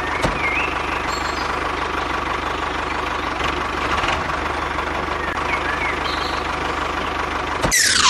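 A mini road roller's small engine running steadily with a fast knocking pulse. Near the end a bright swoosh falls quickly in pitch.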